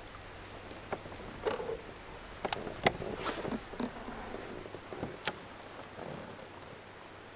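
Scattered sharp clicks and light knocks of fishing gear being handled aboard a plastic kayak, with some rustling, over a faint steady high-pitched hum.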